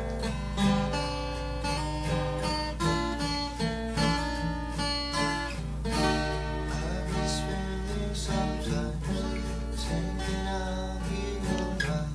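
Acoustic guitar strummed in a steady rhythm, playing the chords of a song intro, with a steady low hum underneath.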